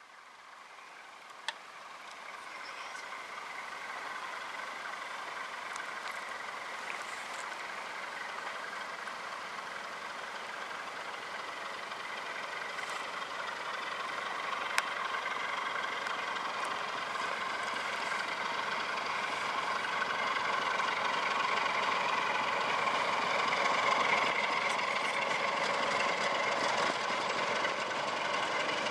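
Diesel engine of a PKP ST43 (Romanian-built Electroputere) freight locomotive running under load, a steady drone that grows steadily louder as the train approaches.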